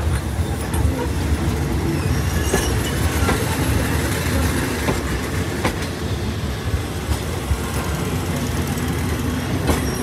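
Railway passenger coaches rolling past close by: a steady low rumble of wheels on rail, with a few sharp clacks over rail joints and a faint wheel squeal a few seconds in.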